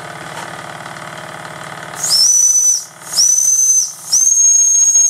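Late-1930s Jensen No. 25 live-steam engine running with a steady rhythmic beat. About two seconds in, a steam whistle gives three shrill blasts of about a second each, each rising slightly in pitch as it starts.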